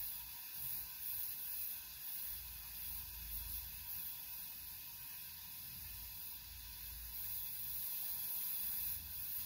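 Gas torch flame hissing steadily as it heats a metal part clamped in a vise.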